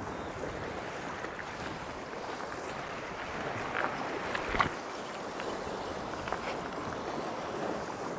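Small sea waves washing and breaking against shore rocks, a steady wash, with one sharp click about halfway through.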